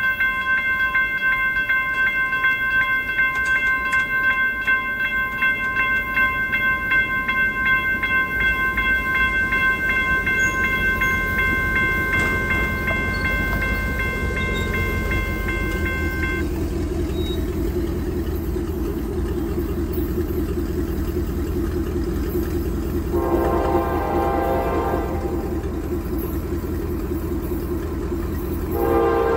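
Railroad crossing bell ringing rapidly while the crossing gates lower, stopping about 16 seconds in. The rumble of the approaching CSX freight locomotive then builds, and its air horn sounds a long blast about 23 seconds in and another near the end.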